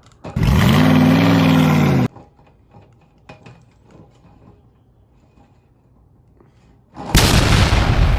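A short engine rev that rises and falls in pitch and cuts off abruptly. After a quiet pause, a loud, noisy crash-like burst starts suddenly near the end and begins to fade.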